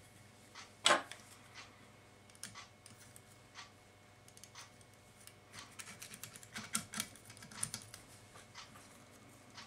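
Scattered small clicks and ticks from hands working at a fly-tying vise, winding thread and handling fibres. There is one sharper click about a second in and a denser run of ticks later on.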